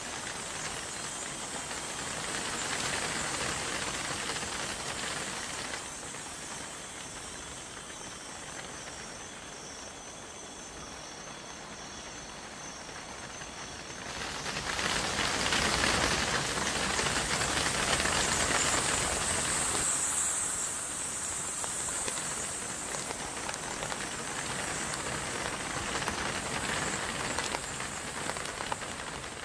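Steady rushing hiss of a huge swarm of bats in flight, with a constant high-pitched whine above it; the rush swells louder about halfway through.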